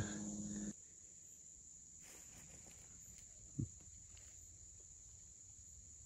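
Crickets chirring steadily in the woods at dusk, with faint rustling steps through leaves and one short, dull low thump about three and a half seconds in.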